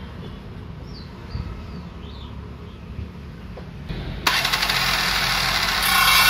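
Handheld electric circular saw switched on about four seconds in and running at full speed, getting louder near the end as the blade starts cutting into the solid wooden board. Before it starts, only a low background rumble.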